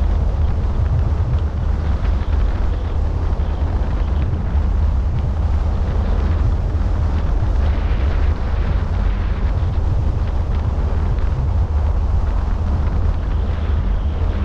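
Wind buffeting the microphone of a camera mounted on the roof of a moving car: a loud, steady, deep rumble, with the car's road noise mixed in.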